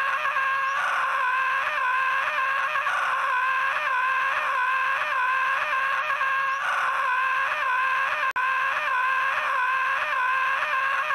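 The cartoon Screaming Sun's continuous high-pitched "AHHH" scream, held without a breath and wavering about twice a second. There is a brief cut about eight seconds in where the loop repeats.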